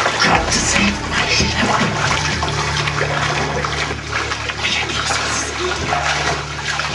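Bathtub water rushing and splashing, a continuous churning with irregular splashes.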